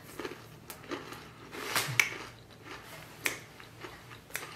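Someone chewing thin, crunchy mint chocolate cookies, giving a few scattered sharp crunches; the loudest come around two seconds in.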